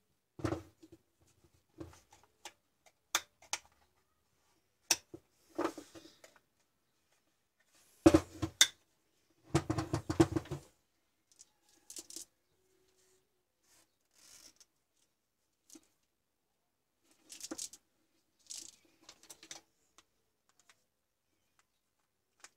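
Scattered knocks, clicks and rustles of hands handling an angle grinder's rubber power cord and plug on a wooden workbench, loudest in a cluster about eight to eleven seconds in, with quiet gaps between.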